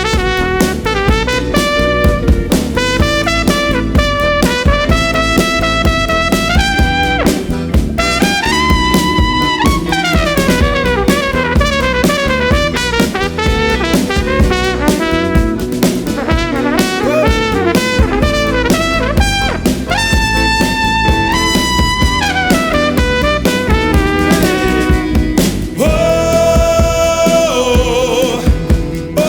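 Trumpet solo over a live rock band, the trumpet moving between held notes and quick runs while the drums and bass keep going underneath.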